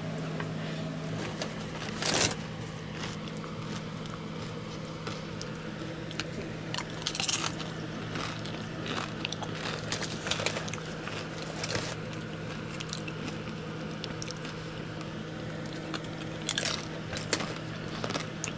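Tortilla chips being bitten and chewed: a sharp crunch about two seconds in, then more crunches scattered through, over a steady low hum.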